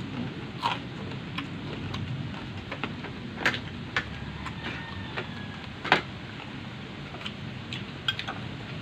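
Eating sounds: chewing and crunching of fried pork-fat chicharon and fish, with scattered sharp clicks and clinks of a spoon against a glass baking dish, the loudest about three and a half and six seconds in. A steady low background hiss and rumble runs underneath.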